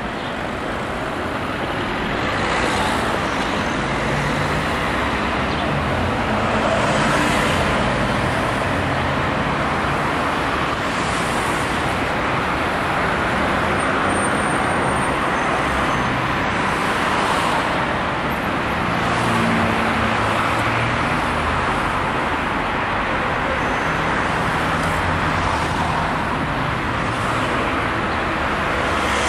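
Busy city street traffic: a steady mix of car and bus engines and tyre noise, with single vehicles passing by every few seconds.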